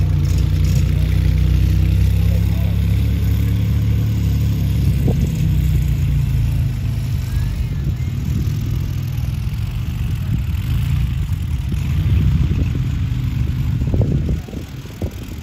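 Car engines running at low speed as show cars drive slowly past, among them a Jaguar XJ220 with its twin-turbo V6. A steady low rumble that drops away about fourteen seconds in.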